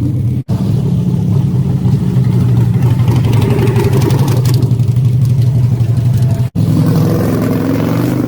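Motorcycle engines running and revving, with the sound dropping out abruptly twice.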